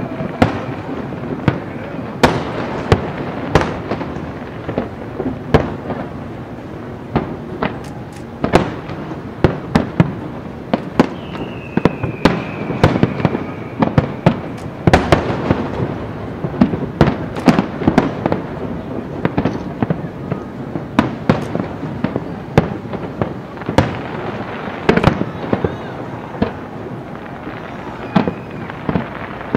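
Aerial fireworks shells bursting in quick, irregular succession: a dense string of booms and crackles. Around the middle, a high whistle falls slowly in pitch.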